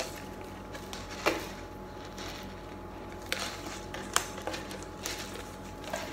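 Instant-noodle cups handled by hand while their plastic wrapping is picked at for opening: scattered crinkles and sharp clicks, the loudest about a second in and again between three and four and a half seconds in.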